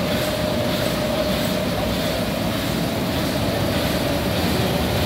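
HSC-1300 slitter rewinder running at speed, about 400 metres per minute, with its servo perforating slit-in unit working the film web: a steady mechanical whir of rollers and web with a steady mid-pitched hum.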